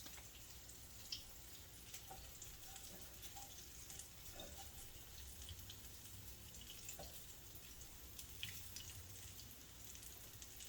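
Faint sizzling with scattered small crackles from breadfruit and saltfish fritters frying in a pot.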